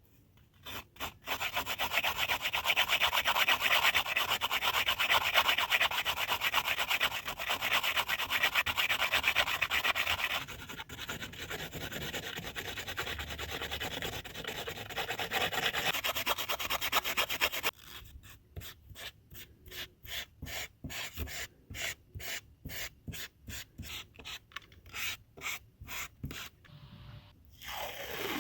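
Hand abrading of a plastic surface: rough scraping strokes that run together into a continuous rasp, loudest for the first ten seconds or so. From about eighteen seconds in they become separate short strokes, about two a second.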